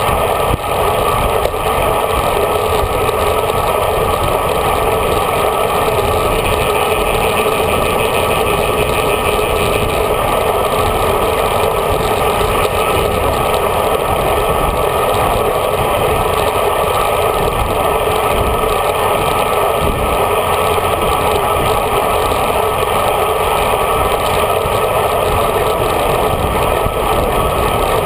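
Steady rush of wind and road noise on a handlebar-mounted GoPro Hero HD while riding a road bike at speed in a group.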